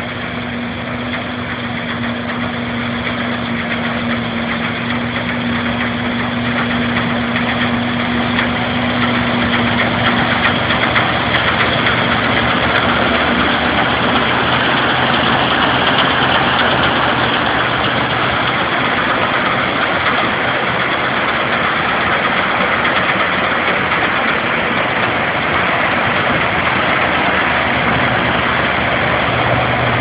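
Combine harvester's engine running steadily with a dense, loud drone, growing louder over the first several seconds and then holding level.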